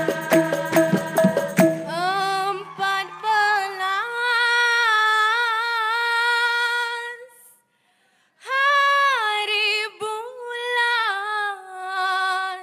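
A rhythm of hand percussion strikes over held voices stops about two seconds in. Then a woman sings alone and unaccompanied, holding long, wavering, ornamented notes, with a brief pause about halfway through.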